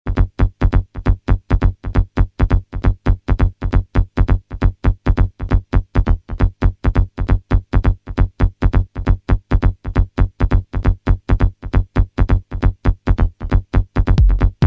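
Early-1990s electronic trance track: a fast, even run of short repeated synthesizer notes over a low bass pulse. The low end grows heavier near the end.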